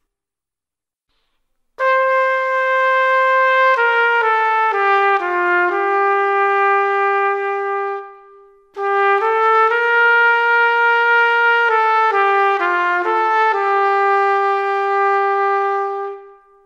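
Solo melody on a single brass-like wind instrument, played slowly in two phrases of steady held notes. It starts about two seconds in, with a short break near the middle, and each phrase ends on a long held note.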